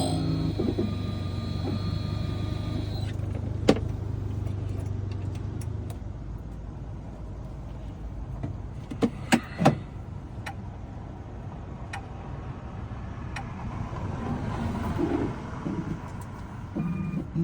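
Electric key-cutting machine running with a steady hum that winds down about five seconds in, followed by sharp metallic clicks and taps as the freshly cut key and the machine's parts are handled.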